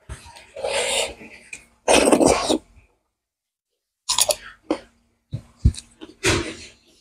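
Close-miked mouth sounds of eating rice and curry by hand: two long, noisy slurping sucks in the first few seconds, then a run of wet chewing smacks and lip clicks.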